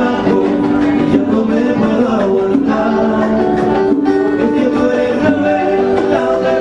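Live Latin band music: a man singing with acoustic and electric guitar accompaniment, held sung notes over a steady strummed rhythm.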